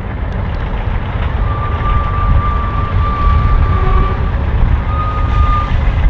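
Diesel locomotive air horn sounding for the grade crossing: one long blast of about three seconds, then a short one, over the steady low rumble of the approaching train.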